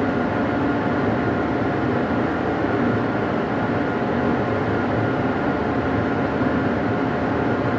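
Steady drone of shipboard machinery on deck, with a steady whine over it, as an ROV is lowered from the ship's crane.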